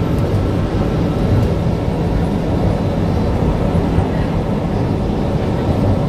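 Airport people-mover train running steadily along its guideway, heard from inside the car: an even low running noise with a faint steady whine.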